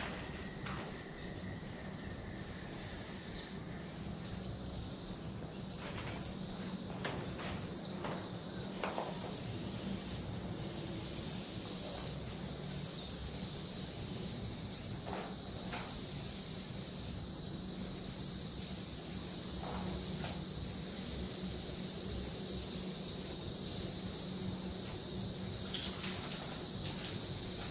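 A steady high-pitched insect drone, more even after about ten seconds, with a few short hisses and taps in the first half from aerosol spray-paint cans in use.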